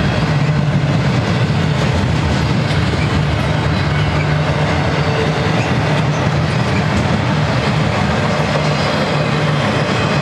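Double-stack intermodal freight train's container well cars rolling past: a loud, steady rumble of steel wheels on rail.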